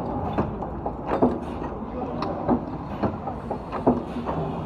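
Automatic chain-link bending machine running through its cycle: steady machine running noise with a metallic clank roughly every one and a third seconds as the dies form each link, and lighter clicks in between.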